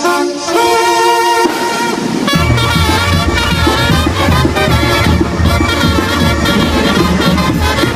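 Brass banda playing chinelo music: the horns hold sustained chords, then a little over two seconds in the full band comes in with a steady, pulsing low bass and drum rhythm under the brass.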